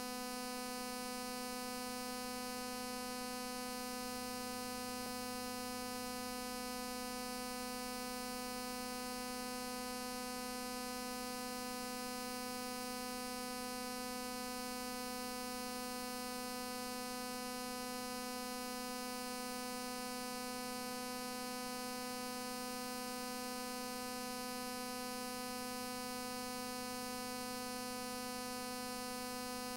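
Steady electrical hum with a buzzy edge, unchanging throughout: noise on the transfer of silent archive film, with no sound of the scene itself.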